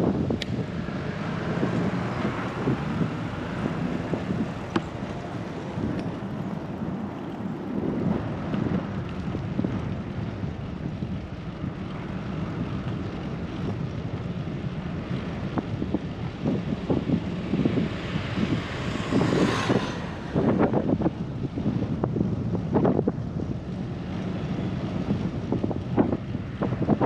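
Wind noise on the microphone of a moving bicycle, with steady rolling road noise. About two-thirds of the way through, a motor vehicle swells up and passes, then fades.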